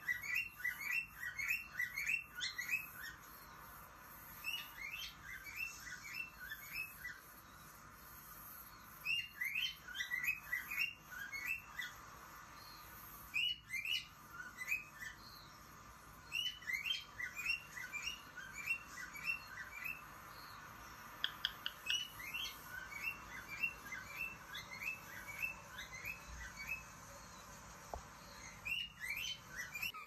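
Cockatiel chirping: runs of short, quick chirps, about three to four a second, each run lasting a few seconds with short pauses between.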